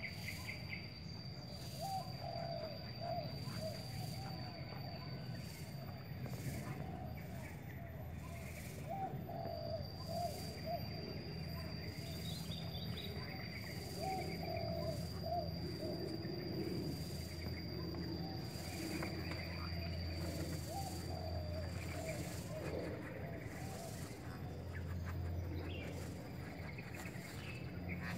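Doves cooing in short repeated phrases every few seconds, over a steady low hum and a thin, high, steady whine.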